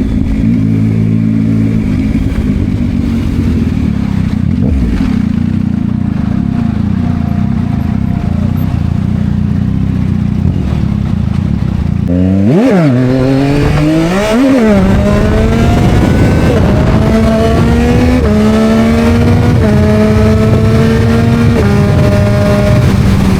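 Yamaha MT-09's three-cylinder engine through an Akrapovič exhaust, running steadily at low revs, then two quick throttle blips about halfway through, followed by acceleration with the pitch climbing and dropping at each upshift, several gear changes about two seconds apart.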